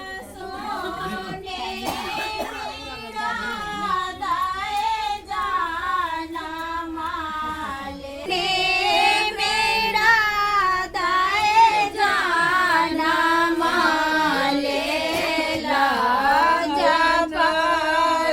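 A high voice singing a melody over a steady held drone note. It gets louder about eight seconds in.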